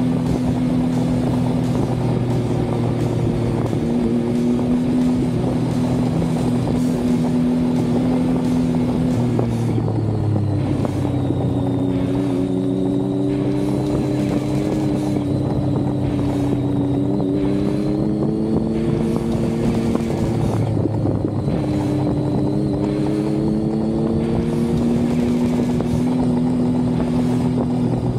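Triumph Speed Triple 1050 S's inline three-cylinder engine running under way at a steady cruise. Its pitch drops sharply twice, about ten and about twenty-one seconds in, and each time climbs slowly back up.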